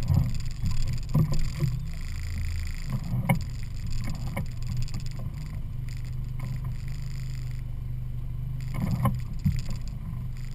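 Evinrude 50 hp E-TEC two-stroke outboard running steadily at low speed as the boat is eased toward the trailer, with a few short knocks: a cluster at the start, one about three seconds in and a few near the end.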